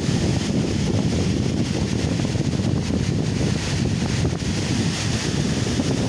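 Strong wind buffeting a phone's microphone: a steady, loud low rumble with a hiss above it, the roar of the wind.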